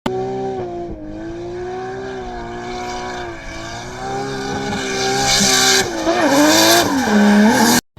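Car engine running at high revs, its pitch wavering and then dipping and climbing again near the end, with tyres squealing louder over the last few seconds. It cuts off abruptly just before the end.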